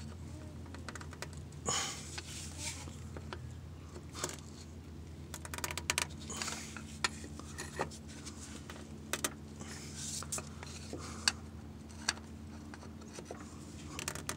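Scattered light clicks and taps of fingers and a flathead screwdriver working the plastic retainer of a clutch hydraulic line's quick-connect fitting, over a steady low hum. The clicks are irregular, a few sharper ones standing out.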